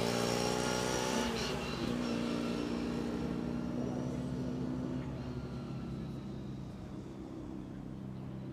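Classic Mini's four-cylinder engine running under load as the car passes close and then drives away, its note fading.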